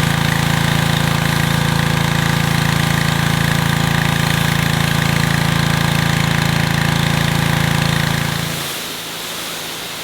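Small gas engine of a pressure washer running steadily at constant speed. About eight and a half seconds in, the engine sound fades away, leaving a steady hiss.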